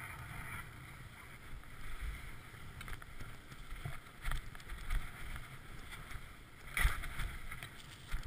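Skis hissing and scraping through powder and chopped-up snow, with wind rumbling on the camera's microphone. Several short scrapes or thumps over bumps, the loudest about two thirds of the way through.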